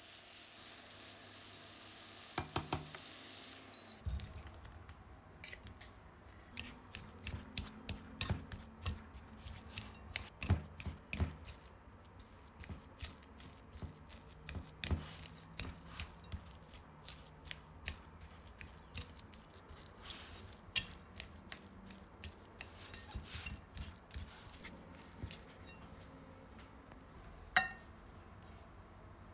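Frying onions and carrots sizzling in a pan for the first few seconds. Then a steel fork clicks and scrapes again and again against a ceramic bowl as it mashes boiled potatoes, with one louder knock near the end.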